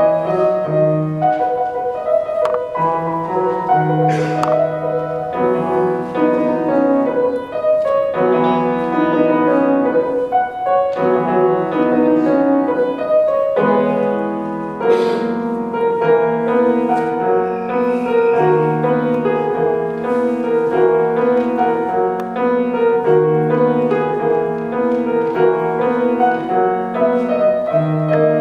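Solo grand piano played continuously: a melody over a steadily repeating pattern of low notes.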